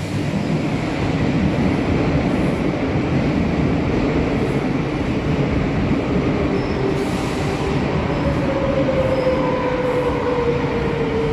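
Madrid Metro series 8400 electric train running into the station, its wheels and running gear making a steady rumble. From about eight seconds in, a whine falls slowly in pitch as the train slows.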